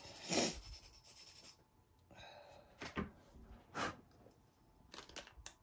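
Pastel pencil being sharpened, its lead scraped in a handful of short, irregular rubbing strokes.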